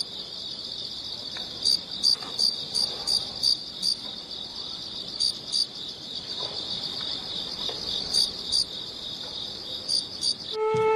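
Crickets chirping: a steady high trill with louder chirps coming in short runs. Near the end it cuts off as a soft flute melody begins.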